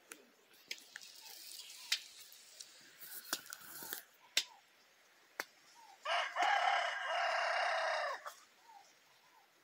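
Rooster crowing once, a single long crow of about two seconds that comes about six seconds in. It is preceded by a few sharp clicks and short, soft chicken calls.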